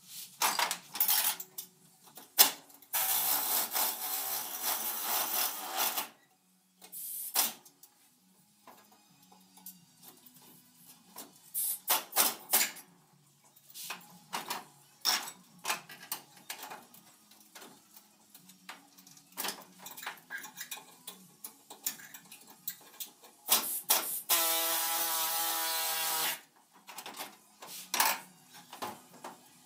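A pneumatic tool running in bursts on sheet-metal floor pan: a short burst about a second in, a three-second run a few seconds in, and a two-second run with a steady whine near the end. In between come scattered clanks and knocks of metal tools being handled.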